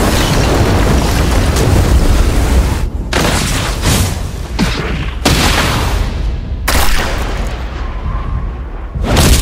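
Naruto anime battle sound effects: about three seconds of continuous heavy rumbling blast, then a string of separate booming impacts and rushes that each start and cut off abruptly.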